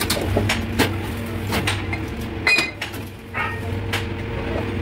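Steel excavator track chain parts clanking as they are handled and set in a pin press: about half a dozen sharp metallic knocks, two of them ringing briefly. A steady machine hum runs underneath.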